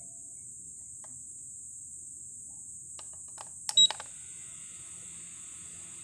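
Small toy quadcopter: a few clicks and a short high beep just before four seconds in, then its tiny motors start with a faint, steady high whine while it stays on the floor, the fault that keeps it from flying. A steady high hiss runs underneath.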